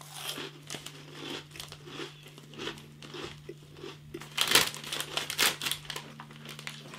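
Plastic snack bag of Jacob's Mini Cheddar Sticks crinkling as it is handled, in irregular crackles close to the microphone, loudest in a cluster about four and a half seconds in.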